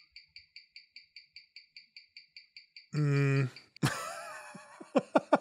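Pin-pallet watch movement ticking steadily, about six ticks a second, picked up close by a timegrapher's microphone. About three seconds in the ticking gives way to a man's voice and a few sharp clicks.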